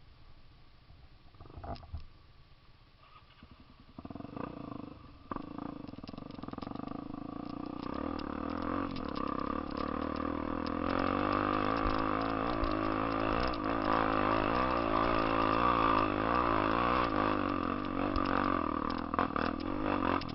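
Honda XR 250 Tornado's single-cylinder four-stroke engine, bored out to 293 cc, pulling hard uphill. It comes in about four seconds in and grows louder as it approaches, the revs rising and falling.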